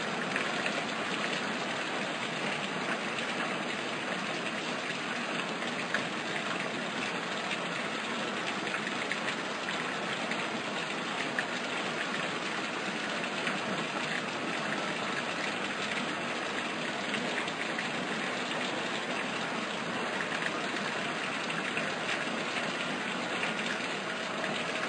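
Steady rushing water noise, even throughout, with a few faint ticks.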